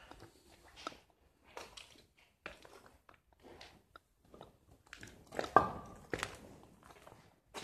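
Footsteps crunching over debris on a littered floor, an irregular series of crunches with one louder crunch about five and a half seconds in.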